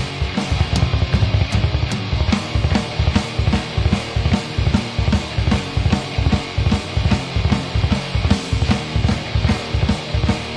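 Live heavy metal band playing through a club PA: distorted electric guitars, bass guitar and a drum kit, with a fast, steady bass-drum beat.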